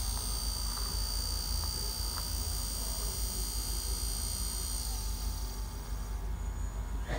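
Small brushed DC motor spinning on a bench power supply, a high whine over a steady low mains hum; as the supply voltage is turned down the motor winds down and the whine fades out about six seconds in. A brief tap near the end.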